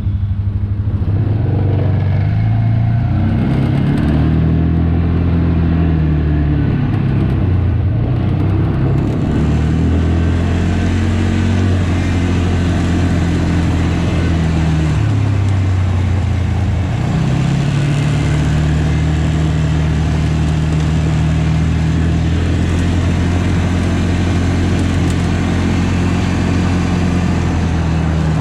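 Farm tractor's diesel engine running steadily; its pitch sags and climbs back a few times as the engine speed changes.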